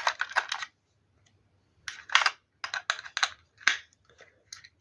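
Irregular bursts of clicking and rattling, a handful of short sharp clicks bunched together near the start, around two to three seconds in, and near the end, with gaps between.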